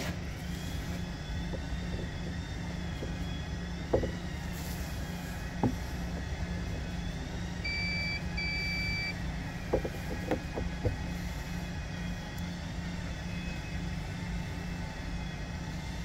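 A multimeter's continuity beeper sounding twice, two short high beeps about halfway through, as the probes bridge a spark plug's centre and ground electrodes: the plug is short-circuited. Under it, a steady low hum and a few light clicks of handling.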